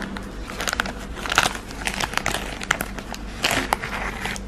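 Clear plastic wrapper of a pack of chocolate-coated pretzel sticks crinkling as a hand squeezes and handles it: irregular crackles, loudest about a second and a half in and again past three seconds.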